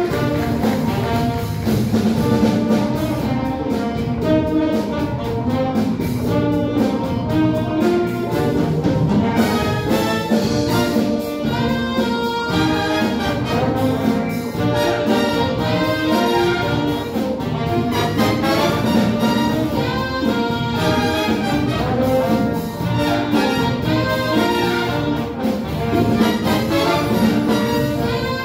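Jazz big band playing live: saxophone section and trombones over electric bass guitar and drum kit, with a steady drum beat.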